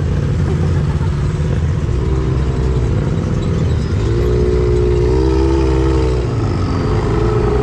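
Kawasaki KRX side-by-side's parallel-twin engine running as the machine drives off, the engine note rising and getting louder about four seconds in, then easing back.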